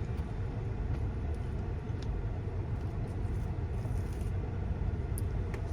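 Steady low rumble of a car cabin, engine and road noise with no clear events.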